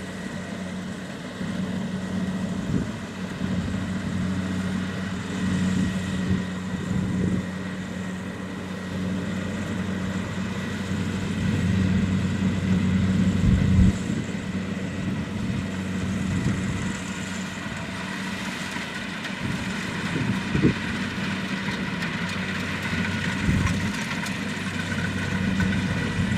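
Kubota DC-70 Plus combine harvester's diesel engine running with a steady low hum that swells and eases a little, with a few short knocks.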